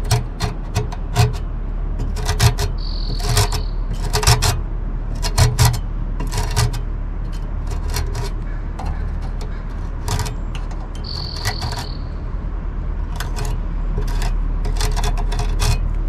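Fin comb drawn upward through the bent metal fins of an RV air conditioner's condenser coil, a run of short raking scrapes at irregular intervals as the fins are straightened.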